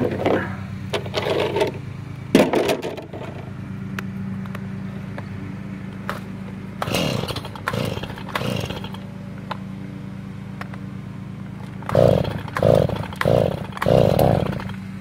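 Stihl Farm Boss two-stroke chainsaw being pull-started: repeated yanks on the starter cord, the engine firing briefly and dying a few times, then four quick pulls in a row near the end. A steady low hum runs underneath.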